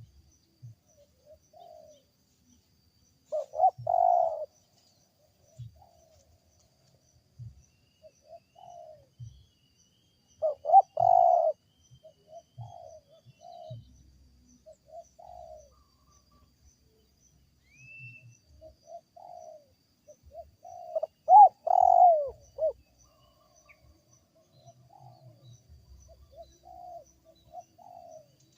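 Wild spotted dove (tekukur) cooing in repeated phrases, with a loud coo phrase about every seven seconds and softer coos between them. It is a call thought strange for the species.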